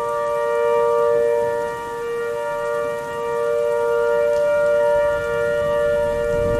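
Synthesized outdoor warning siren sounding a steady tone: a held two-note chord with many overtones that swells and dips in loudness every couple of seconds. A low rushing noise builds up underneath near the end.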